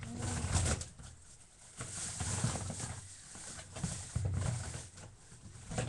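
Rummaging through things while searching for a Nerf ammo pack: short bursts of rustling and knocking, about three of them, roughly two seconds apart.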